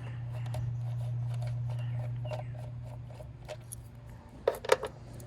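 Plastic clicks, taps and rubbing from work on a 2008 Dodge Caliber's ignition coil packs as they are unclipped and pulled. The sharpest clicks come in a quick cluster about four and a half seconds in, over a steady low hum.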